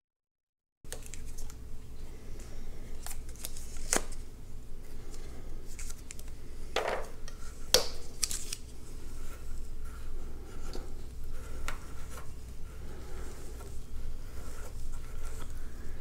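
Teflon thread tape being pulled off its roll and wrapped onto a water heater's threaded pipe nipples: scratchy, crinkly handling that starts about a second in, with a few sharp clicks.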